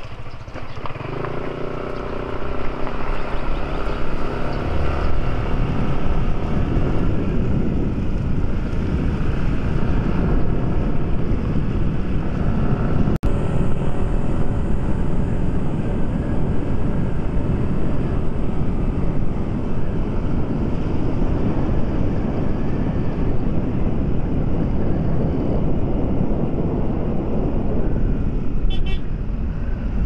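Motorcycle engine pulling away, its pitch rising over the first few seconds, then steady riding buried under heavy wind noise on the microphone. A single sharp click about halfway through.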